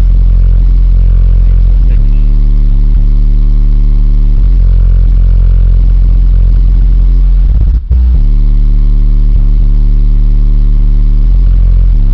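Bass-heavy music played very loud through a car's 18-inch subwoofers, with deep bass notes that shift every second or so and overload the recording. The sound briefly cuts out about eight seconds in.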